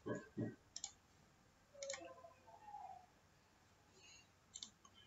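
A few faint computer mouse clicks, spread out with pauses between them, while selecting a checkbox and pressing a button. Near the start there are two soft, low knocks.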